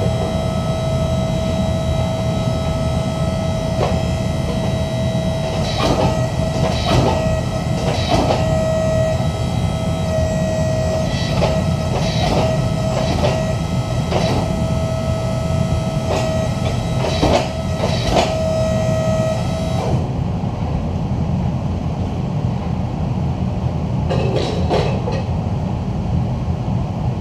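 Hydraulic forging press working a hot Damascus billet: a steady pump drone with a whine over it, and a series of short knocks as the ram squeezes the steel to draw it out. The whine cuts off about 20 seconds in, and one more knock comes near the end.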